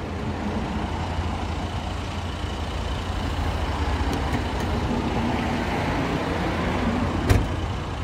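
Power tailgate of a BMW X1 closing: a faint motor hum as it lowers, then one sharp thunk about seven seconds in as it latches shut, over a steady low rumble.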